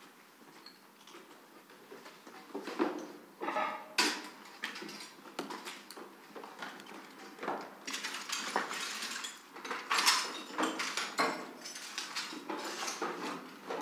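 Footsteps crunching over broken wooden boards and rubble, loose planks and debris knocking and clattering underfoot. The knocks are sparse at first and come thick and loud from about halfway on.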